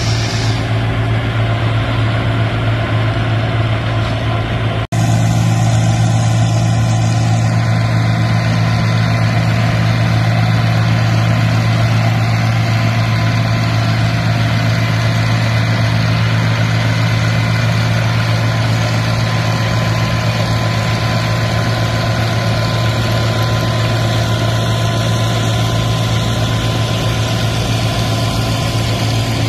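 International Harvester 656 Hydro tractor engine running steadily under load while driving a New Holland 38 flail chopper, which cuts sorghum-sudan grass and blows it through its spout into a wagon. A brief break about five seconds in, after which the sound is a little louder with more hiss.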